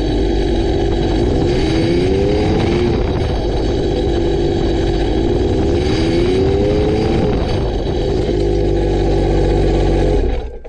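BRP Rotax jet-boat engine running out of the water on its trailer, revved up twice and then shut off, stopping abruptly near the end. The revs blow the leftover raw cooling water out of the exhaust system for winterizing.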